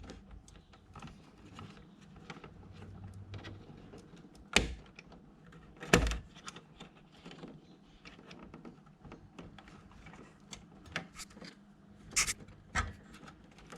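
Small plastic clicks and knocks of a memory module being worked out of a desktop motherboard's RAM slot, as the slot's retention latches are pushed open. There are two sharp clicks about a third and halfway through, and two more near the end.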